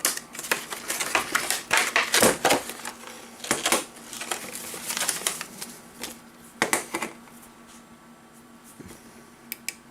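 Hands handling a plastic plug-in Wi-Fi outlet and its packaging: irregular clicks, taps and rustles, with a quick run of small clicks near the end.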